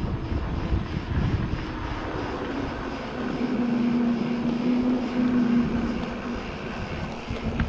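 Wind rushing over the microphone and tyres rolling on pavement as a downhill mountain bike coasts along, with a steady buzzing tone for a couple of seconds midway.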